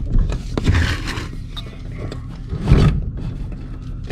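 Irregular knocks and scrapes of hands working around the dishwasher's underside and wiring bracket, with the loudest thud about three-quarters of the way through.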